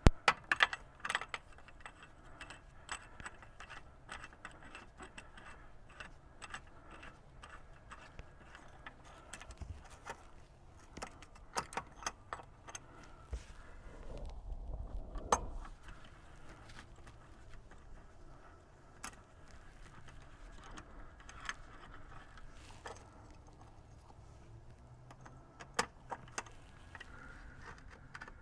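Scattered, irregular clicks and taps of hand tools and small parts being handled while a rear-door stabilizer is fitted, with a louder low rumble about halfway through.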